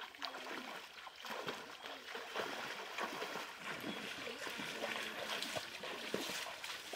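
Footsteps splashing through a shallow, rocky stream, with short irregular splashes over the steady rush of the flowing water.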